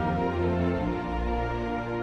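Slow, sad orchestral film music with sustained low chords. The bass note shifts about a second in.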